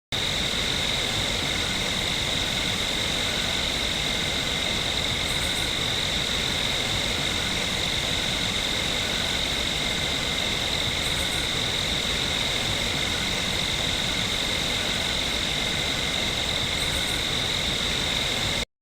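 Steady insect chorus ambience: a continuous high trill over an even hiss, with a faint high sound recurring about every six seconds. The sound starts and cuts off abruptly.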